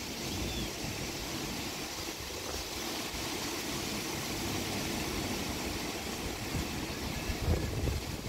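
Steady rain falling in a storm, with wind buffeting the microphone in uneven low gusts and a stronger gust near the end.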